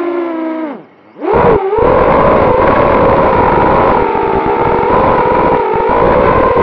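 Brushless motors and propellers of a 6-inch quadcopter (2207 1650kv motors on 6S) whining in flight: the pitch falls and the sound nearly cuts out about a second in as the throttle is chopped, then punches back up and holds a steady, slightly wavering whine. A rough rumble of wind buffeting the onboard camera runs underneath.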